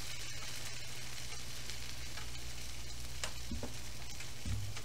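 Hamburger buns sizzling in nonstick spray on a hot griddle pan, pressed flat under a cast-iron grill press, with a steady frying hiss and a few sharp crackles about three seconds in.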